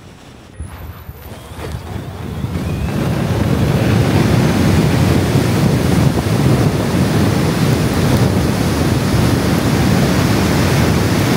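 Wind buffeting the microphone of a car driving fast across a grass field. The rush builds over the first few seconds, then holds loud and steady.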